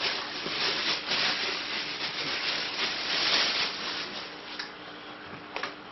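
Clear plastic wrapping crinkling and rustling as a rifle is slid out of its bag, busiest through the first four seconds, then dying down.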